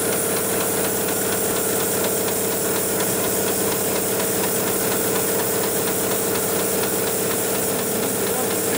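Automated programmable pattern sewing machine running steadily, its needle stitching rapidly through thick polyester strap webbing in a clamp frame: an even machine hum under a fast, regular needle clatter.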